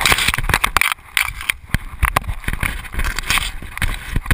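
Nylon parachute canopy rustling and crackling over the camera in irregular bursts as it collapses.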